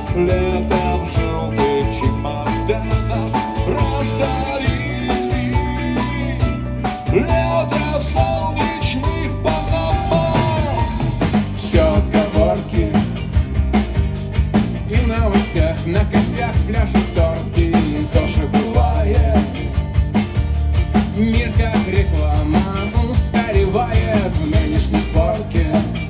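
Live rock band playing with a steady drum beat, bass, electric and acoustic guitars and keyboard.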